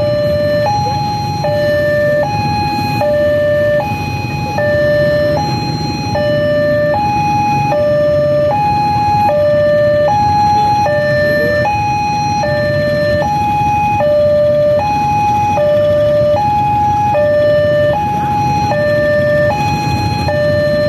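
Railway level-crossing warning alarm sounding from its pole-mounted horn loudspeaker while the barrier is down and a train approaches. It is an electronic two-tone signal, a higher and a lower note alternating about every three quarters of a second and repeating steadily, over a low, steady rumble.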